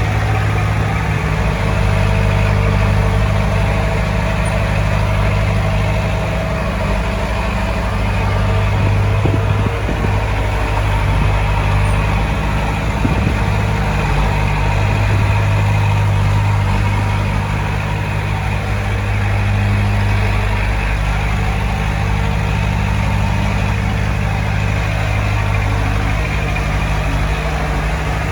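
Heavy diesel engine of earth-moving machinery running steadily with a low, even hum.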